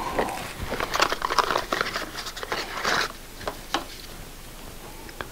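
Rustling and small clicks of gloved hands handling a new motorcycle oil filter, busy for the first three seconds, then a few single clicks.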